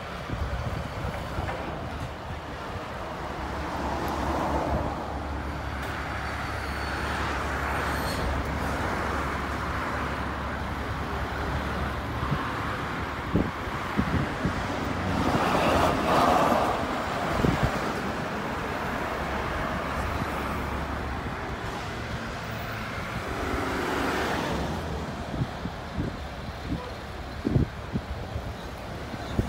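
Road traffic: vehicles passing one after another, each swelling and fading, over a steady low engine hum that stops about two-thirds of the way through.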